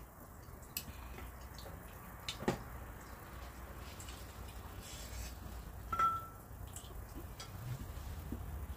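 Tableware clicking now and then as a meal is eaten: chopsticks and a spoon tapping against bowls and plates, with one brighter ringing clink about six seconds in, over a low steady hum.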